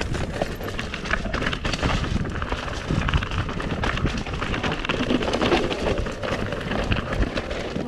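Mountain bike riding over a rough dirt trail: tyres crackling over gravel and roots, with constant rattling from the bike.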